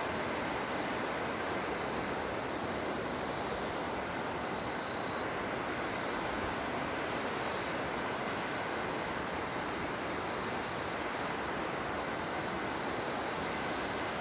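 Steady rush of the Bhagirathi, a fast mountain river running over boulders and shallow rapids.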